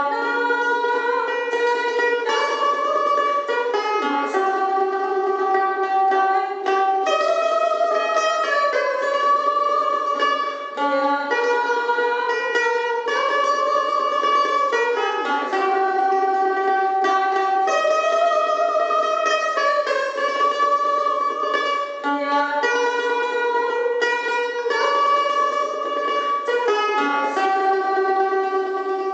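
Solo mandolin playing a slow march-like melody, its longer notes sustained by tremolo picking.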